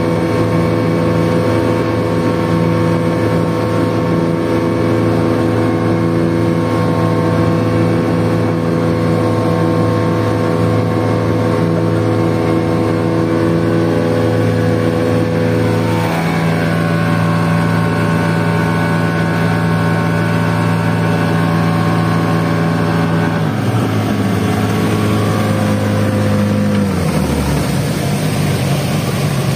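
Motor of a small wooden fishing boat running steadily at cruising speed, with the rush of the hull through the water. Its note shifts slightly about halfway through and drops a little in the last few seconds.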